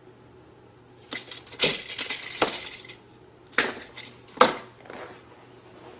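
Cutters snipping through quarter-inch rubber hose, and tools and hose knocking on a workbench: a run of sharp clicks and crunches about a second and a half in, then two more sharp knocks a couple of seconds later.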